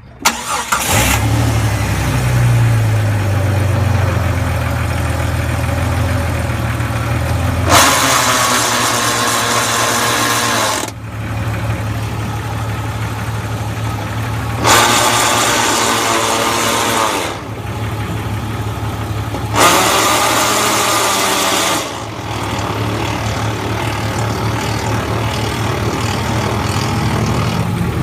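A 2000 Jeep Cherokee's engine starts and idles, its note settling lower over the first few seconds. Three times, for about three seconds each, a louder, higher-pitched strange noise rises over the idle and then drops away. The owner hears this noise when the automatic is shifted into reverse or drive and suspects a transmission problem.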